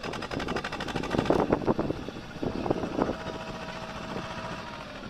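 Swaraj 724 XM tractor's two-cylinder diesel engine running under load, hauling a trailer heaped with soil, with an even beat of engine pulses that swells and eases.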